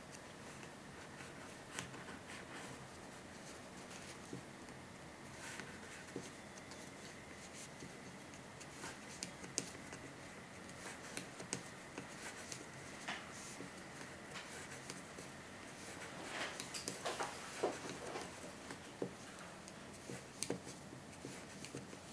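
Faint, irregular ticks and rubbing of wooden knitting needles and wool yarn as stitches are worked by hand, with a busier run of taps about two-thirds of the way through.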